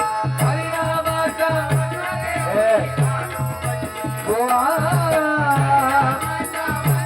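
Devotional bhajan singing: a voice draws out sung lines of a Marathi refrain over a steady, even drum beat.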